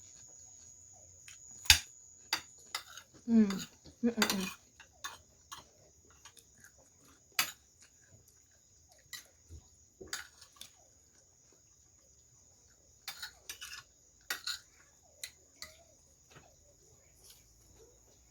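Cutlery clicking and scraping against a plate during a meal, in scattered short strokes. About three and four seconds in come two short falling vocal sounds.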